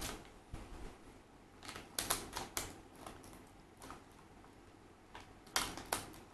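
Small scissors snipping open a foil blind-bag wrapper: scattered faint clicks, snips and crinkles, with two louder snips near the end.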